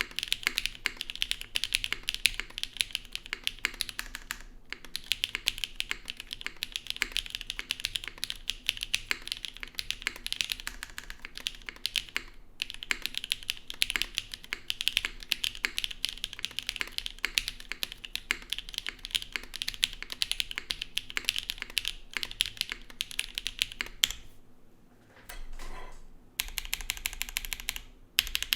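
Fast, steady typing on a Zoom75 gasket-mounted mechanical keyboard with a carbon fiber plate, no foam dampening, Owlab Neon linear switches and GMK Sparta keycaps: a dense run of key clacks with brief pauses. The typing drops off for a couple of seconds near the end, then resumes.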